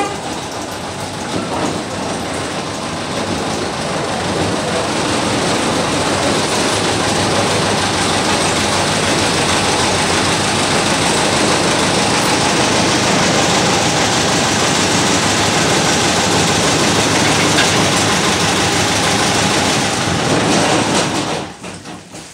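Small narrow-gauge diesel locomotive running as it rolls slowly up, its engine noise growing louder as it approaches and then holding steady. A sharp knock comes at the very start, and the engine noise drops away abruptly near the end.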